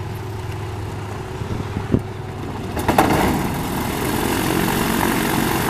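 Propeller engine of a single-engine light aircraft starting up about three seconds in, with a couple of sharp knocks, then running steadily at idle.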